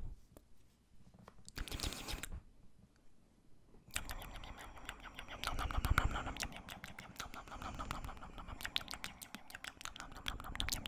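Close-miked wet mouth sounds for ASMR 'ear eating': smacking and clicking right against the microphone. There is a short burst about two seconds in, then from about four seconds in a dense, continuous run of wet clicks.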